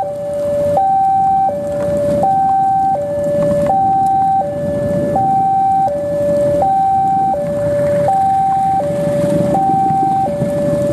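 An electronic two-tone alarm alternating evenly between a high and a low note, each held about three-quarters of a second. Beneath it a diesel locomotive rumbles as it pulls out under load, belching smoke and flame from its exhaust.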